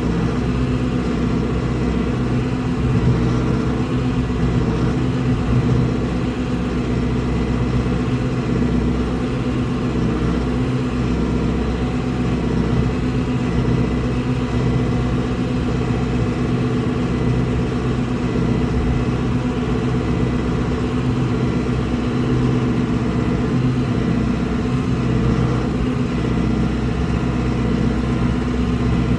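Vehicle engine running steadily at a low, even speed throughout.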